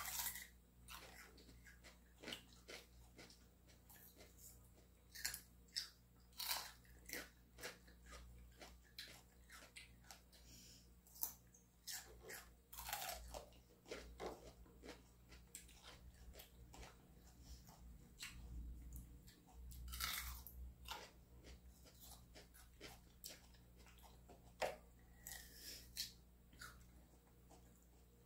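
Two people biting into and chewing crisp fresh fruit pieces close to the microphone: faint crunches and mouth clicks at irregular intervals.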